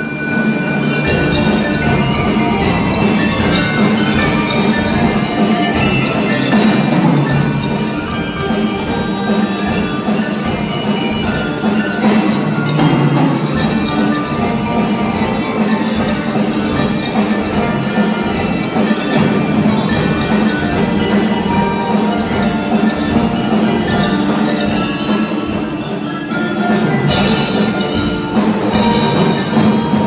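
Percussion ensemble playing live on marimbas, xylophone and other mallet percussion: a dense stream of fast struck notes, growing louder about three seconds before the end.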